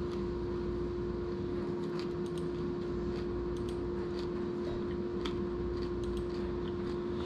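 A person chewing a bite of chocolate-coated protein bar, heard as scattered faint small clicks and crunches over a steady low hum.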